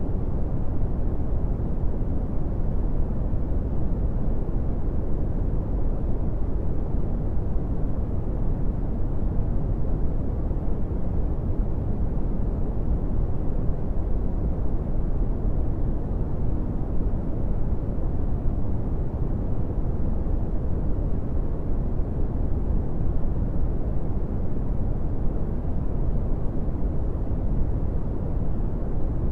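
Brown noise: a steady, deep rumbling hiss, strongest in the low end and fading in the highs, with no change or events.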